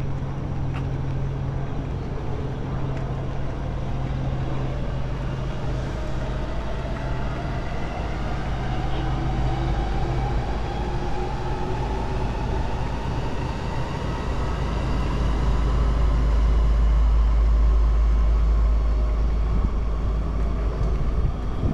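Electric train pulling away, its motors giving a whine that rises slowly in pitch, while a low rumble swells louder in the second half.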